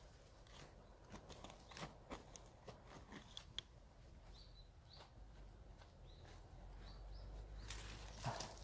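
Faint, scattered scrapes and clicks of digging by hand in stony soil with a small hand digging tool and gloved fingers. A few short bird chirps come about halfway through, and a louder rustling crunch of dry grass and soil near the end.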